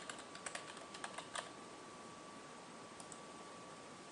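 Computer keyboard typing: a quick run of keystrokes for about a second and a half as a password is entered, then two light clicks about three seconds in, over a faint steady tone.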